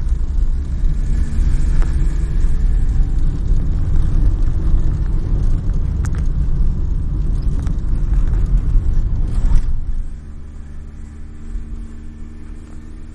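Car driving, heard from inside the cabin: a loud low rumble from the engine and road that drops sharply about ten seconds in, leaving a quieter steady hum.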